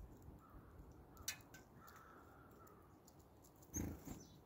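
Near silence, with a few faint clicks and one brief soft rustle almost four seconds in.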